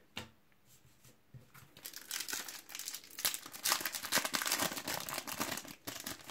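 Foil wrapper of a Panini FIFA 365 card sachet being torn open and crinkled by hand. A dense, crackly rustle starts about two seconds in and runs on until near the end.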